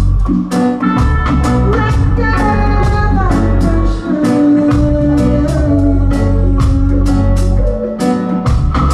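Reggae band playing live, with guitar, heavy bass and drums keeping a steady beat, and a woman singing over it.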